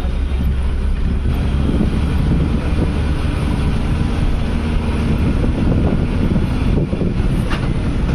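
Moving city bus heard from inside: steady engine and road rumble, with wind rushing in through the open window.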